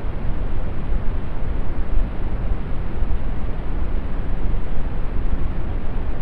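Steady brown noise: an even, deep hiss with most of its weight in the bass, thinning out toward the treble, unchanging throughout.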